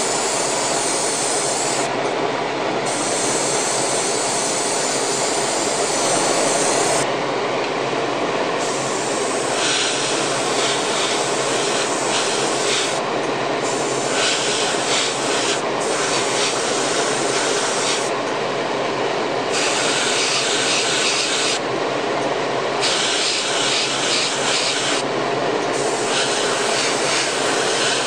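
Airbrush hissing as it sprays paint, cutting out for about a second six times as the trigger is let off, over the steady running of a spray booth's exhaust fan.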